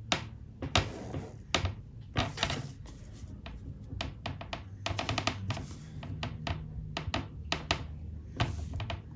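Clear plastic ruler and protractor tapping and shifting on a spiral notebook while a ballpoint pen scratches lines along the ruler edge: a string of irregular clicks and taps with short bits of scratching.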